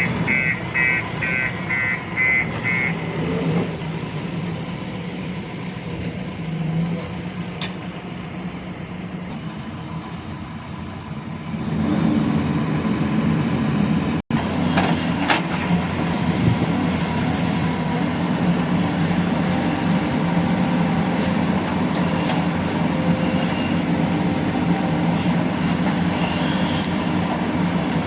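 Diesel engine of a JCB 3DX Plus backhoe loader running steadily, getting louder about twelve seconds in as it is worked harder. A rapid beeping sounds over it for the first few seconds.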